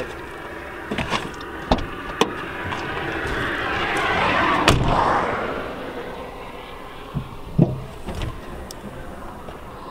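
Car door and boot handling: a handful of clicks and clunks, the sharpest about halfway through. A passing vehicle's hiss swells and fades in the middle of it.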